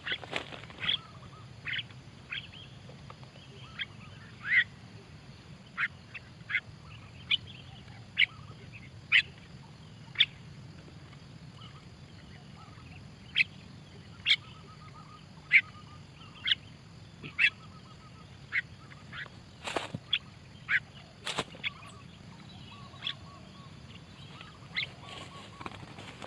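Birds giving short, sharp single calls, one every half second to a second, with a few quiet gaps. Two sharp clicks come about two-thirds of the way through.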